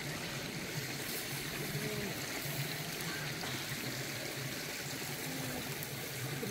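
A small stream running steadily, a constant trickling rush of water.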